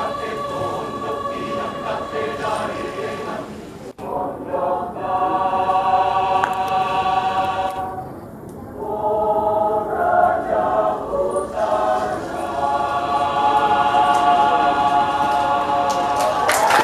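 Mixed choir of men's and women's voices singing sustained chords. There is a brief break about four seconds in and a quieter moment around eight seconds, after which the voices swell louder again.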